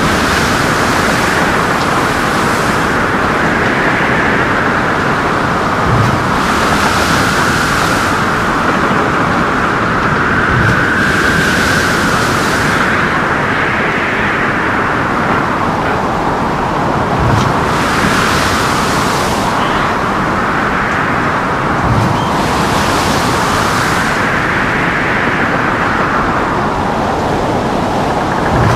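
Ship in a storm: a loud, continuous rush of wind and sea whose pitch swells and falls, with hissing surges of water every five or six seconds and a dull low thud about every five seconds.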